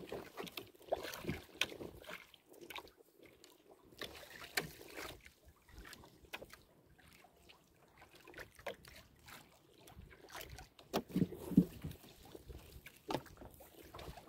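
Nylon gill net and its plastic floats being hauled over the side of a small wooden outrigger boat: irregular rustles, clicks and knocks, with a couple of louder thumps about eleven seconds in.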